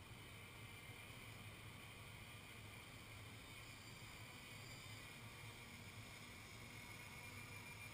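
Faint, distant quadcopter motors and propellers whining, growing slightly louder near the end, over a low steady hum.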